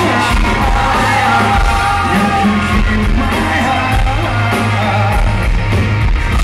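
A rock band playing live, with a male lead singer singing into the microphone over the band and drums, close to the stage.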